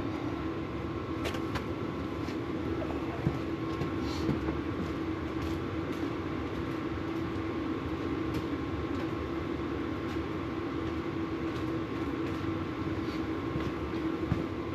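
Steady mechanical drone with a constant hum, and scattered light clicks and taps of hand tools as a fitting is worked out of a brake caliper.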